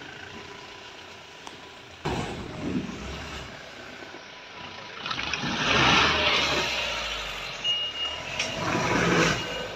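Mahindra Bolero pickup's diesel engine working in surges as it crawls through deep mud ruts, with tyre and mud noise. It picks up suddenly about two seconds in, is loudest about halfway through, and surges again near the end.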